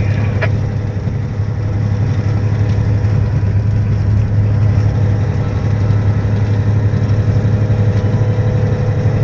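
Heavy truck's engine running steadily under way, a constant low drone heard from inside the cab, dipping slightly about a second in.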